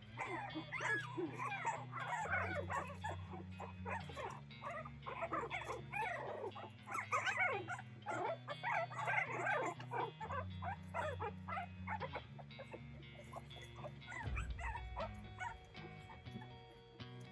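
A litter of young Boston Terrier puppies crying as they play, with many short, high, squeaky calls overlapping. The cries thin out about three quarters of the way through. Background music with low sustained notes runs underneath.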